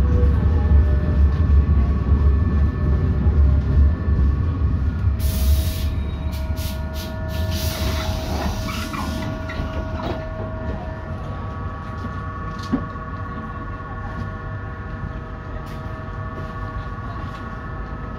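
ASEA M31 tram coming to a halt, its low running rumble fading over the first few seconds. About five seconds in comes a sharp hiss of compressed air as the pneumatic doors open, followed by several shorter hisses and clicks, then a steady electric hum with a few held tones while the tram stands at the stop.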